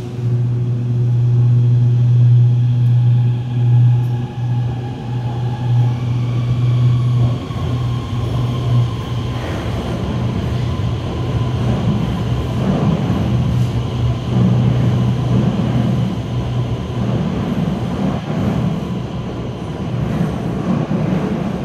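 Guangzhou Metro Line 21 train pulling out of the platform into the tunnel. A low hum and a thin traction-motor whine are heard, the whine stepping up in pitch about six seconds in as the train gathers speed, then the rumble of wheels on the rails as the cars pass.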